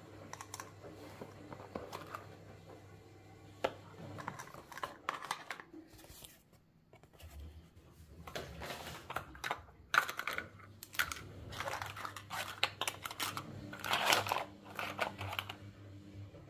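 Miniature toy cookware and plastic utensils being handled and set down: irregular light clicks, taps and rustling, with a brief lull near the middle and a busy cluster of taps near the end.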